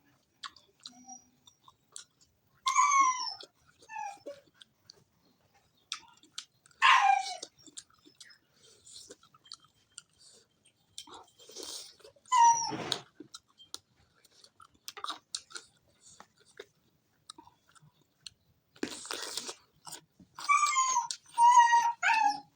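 An animal's short, high whining cries that fall in pitch, heard several times and loudest near the end, with soft crunching and chewing of food in between.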